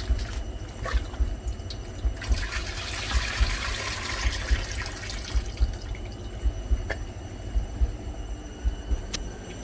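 Water running from a kitchen tap and splashing while seasoning vegetables are rinsed under it, with a few light knocks.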